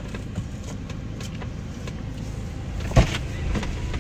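Low steady rumble of a car idling, heard from inside the cabin. A single sharp thump comes about three seconds in, with a few faint clicks around it.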